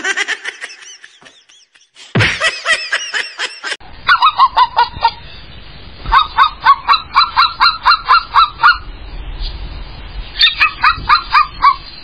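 Bouts of short, rapid honking calls, about four a second, starting about four seconds in and pausing between bouts. Before them comes a briefer stretch of fast, chirping calls.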